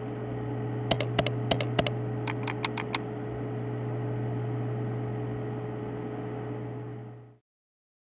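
Logo intro sound effect: a steady low hum with sharp clicks, four spaced out and then a quick run of five, in the first three seconds. The hum fades out about seven seconds in.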